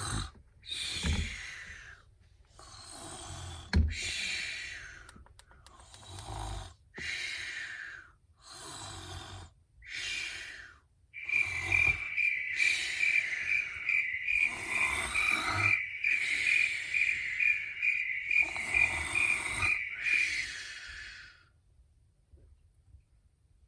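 Snoring: rasping breaths about every second and a half, with a sharp knock about four seconds in. From about halfway through, a high whistling tone pulsing about twice a second sounds over the snoring for some nine seconds.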